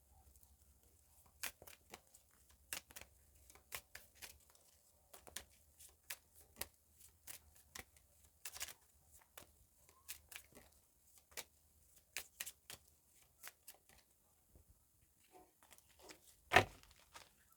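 A deck of divination cards being shuffled by hand: irregular quick snaps and flicks of the cards, with one louder slap about a second before the end.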